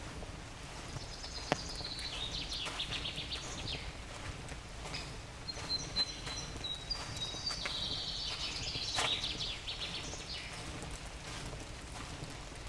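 Songbirds singing in a damp forest: runs of quick high chirping notes through most of the stretch, with a short clear whistle a little before the middle. A few sharp clicks stand out, once early on and twice more later, over a steady low rumble.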